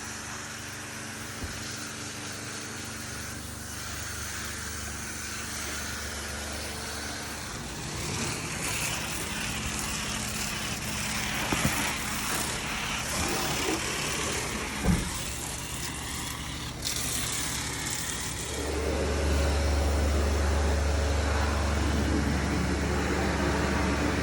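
A car driving: steady engine and road noise that slowly builds, then gets clearly louder and deeper about 19 seconds in. There are a couple of short knocks in the middle.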